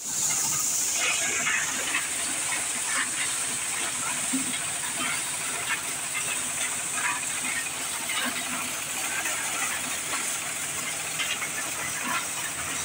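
Engine-driven maize thresher running steadily: a loud, even whoosh of the threshing drum and blower over a low engine hum, with short rattles as cobs are fed in.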